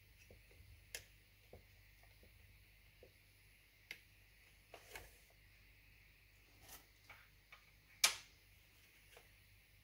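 Scattered faint clicks and taps from hands and tools handling a circuit board while desoldering, with one sharper, louder click about eight seconds in.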